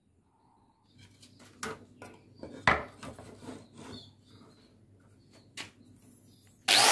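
Irregular metallic clicks and knocks of a handsaw and tools being handled, one knock louder than the rest, followed just before the end by a sudden loud, steady hiss.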